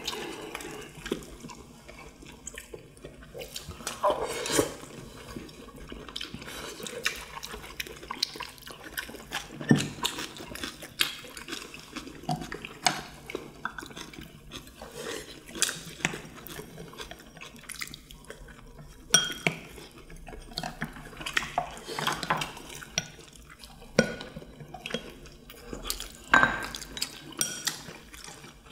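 Chopsticks and spoons clicking and scraping against ceramic bowls and plates in an irregular scatter, with wet chewing and slurping, as several people eat.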